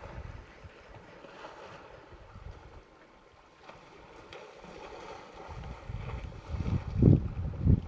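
Wind buffeting the microphone in low gusts, strongest about seven seconds in, over faint splashing of elephants wading and rolling in a waterhole.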